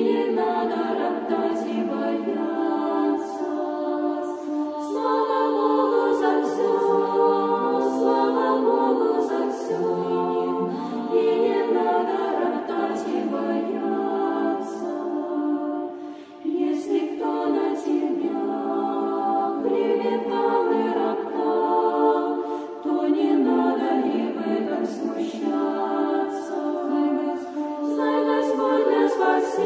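A cappella choir singing an Eastern Orthodox hymn in sustained chords that change every few seconds, with a brief pause about sixteen seconds in.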